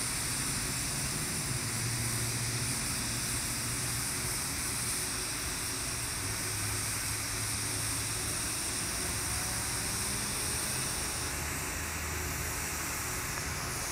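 TIG welding arc on carbon steel pipe, hissing steadily as the weld bead is laid, with a low hum underneath.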